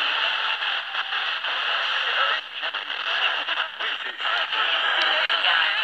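Portable FM radio receiver picking up a weak, distant broadcast: a steady loud hiss of static with faint broadcast audio wavering underneath, briefly dropping out twice. It is the sound of a marginal FM signal arriving by sporadic-E propagation.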